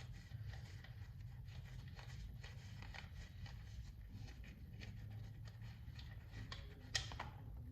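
Faint clicks and scrapes of a wrench turning out a motorcycle's oil drain bolt, with one sharper click about seven seconds in.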